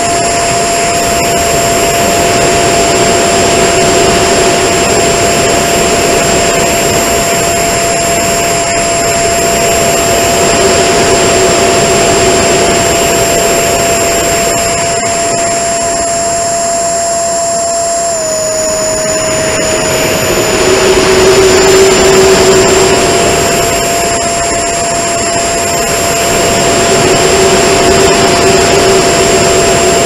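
Electric ducted fan of a small RC jet running with a steady, loud whine, heard from a camera mounted on the airframe in flight, with air rushing over the microphone and swelling and fading several times. About eighteen seconds in, the whine drops slightly in pitch and climbs back over a few seconds.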